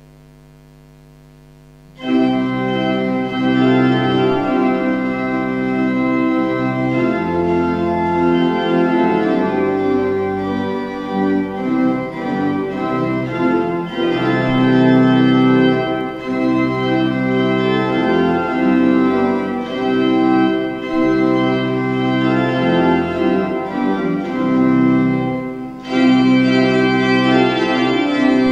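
Church organ playing held chords that change one to the next, starting abruptly about two seconds in after a faint hum. Near the end it dips briefly, then comes back fuller.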